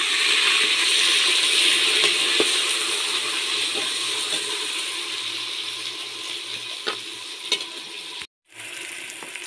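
Minced onions sizzling in hot ghee in an aluminium pressure cooker: a loud, even sizzle that slowly dies down, with a few light clicks of the metal ladle. Near the end the sound breaks off for a moment and comes back quieter.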